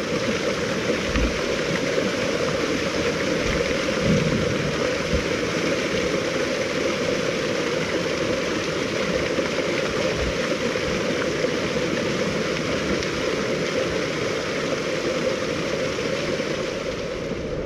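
Thin waterfalls pouring down a rock cliff and splashing into the sea: a steady, even rush of falling water.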